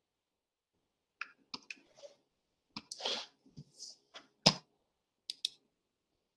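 Scattered clicks and light knocks of a computer mouse and keyboard, about a dozen over a few seconds starting about a second in, the loudest about four and a half seconds in.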